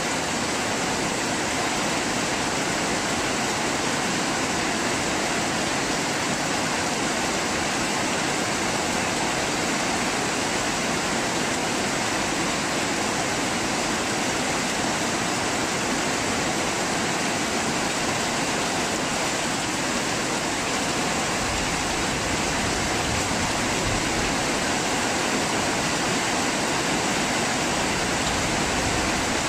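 Heavy rain pouring steadily in a storm, a dense, even hiss.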